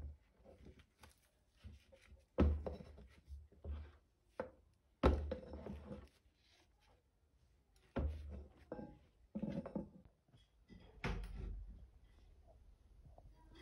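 Irregular knocks and clunks, several of them, from a metal rod and wire being handled against a plastic tub of water. The loudest come about two and a half and five seconds in.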